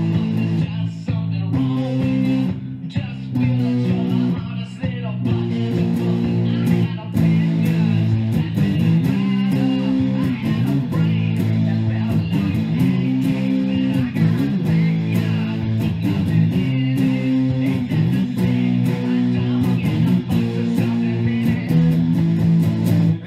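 Electric guitar played with a pick, a continuous run of chords changing every second or so.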